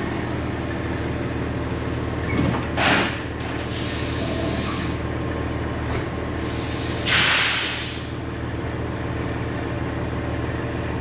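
Semi truck's diesel engine running steadily, with two short, loud hisses of released air, about three and seven seconds in.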